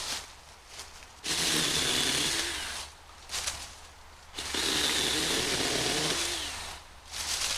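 Small battery-powered 6-inch chainsaw running in two bursts of about two seconds each, its electric motor whine dropping in pitch as each burst is released, as it cuts through privet brush.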